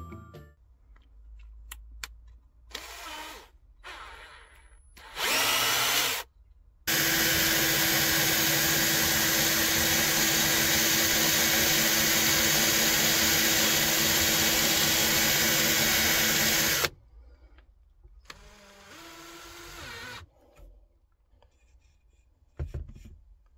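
Electric drill running steadily for about ten seconds while it bores into a softwood board. A brief one-second run comes before it, and a shorter, quieter run follows near the end.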